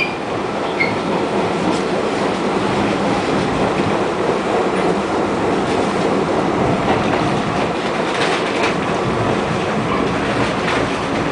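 R68A subway cars rolling on the rails: a steady rumble of wheels on track, with a few faint clicks near the end.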